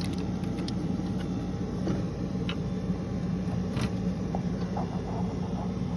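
Engine of a 2000 GMC Sierra 2500 pickup idling steadily, with a few faint clicks over it.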